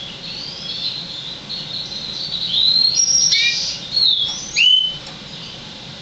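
Six-month-old hybrid of a yellow-fronted canary and a black-throated canary singing: a run of quick warbled phrases with rising and falling whistled glides. It grows louder about halfway through, with its loudest notes near the end, and stops about five seconds in. It is the song of a young bird, expected to improve when mature.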